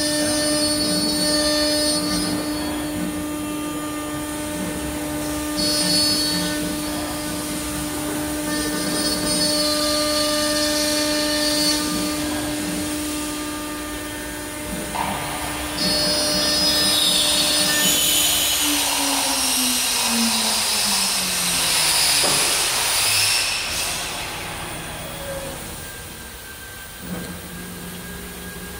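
CNC router spindle running with a steady whine as the bit cuts MDF board, with hissing cutting noise. About 18 seconds in, the whine falls steadily in pitch over some five seconds as the spindle spins down.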